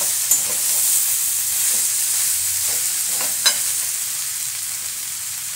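Potatoes, tomato and ground spice paste sizzling in oil in an aluminium kadai as a spatula stirs them, with a couple of sharp knocks of the spatula against the pan. This is the masala being fried down (kosha) in the pan.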